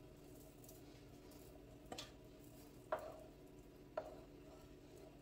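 Three light knocks about a second apart, a utensil against a cooking pot of sauce, over a faint steady hum.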